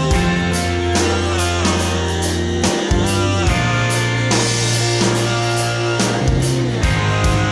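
Rock background music with electric guitar, bass and a drum kit keeping a steady beat.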